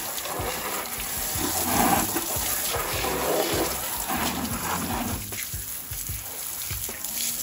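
Water jetting from a garden hose, its end pinched by hand into a spray, hitting a car tyre, alloy wheel and wheel arch and splashing off. The spray sound eases a little about five seconds in.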